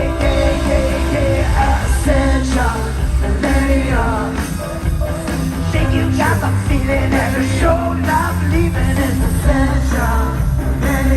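Loud live rock music from a concert PA, with a heavy bass and a voice singing and yelling over it.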